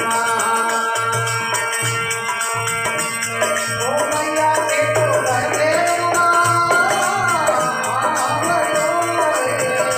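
Devotional bhajan music: a gliding melody line over steady drum beats and shaken rattle percussion.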